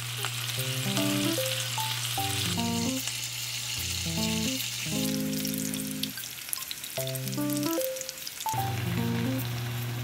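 Bacon, sliced onion and marinated pork galbi sizzling as they fry in a grill pan, the sizzle changing in strength twice as the food in the pan changes. A light music track with a plain melody plays over it.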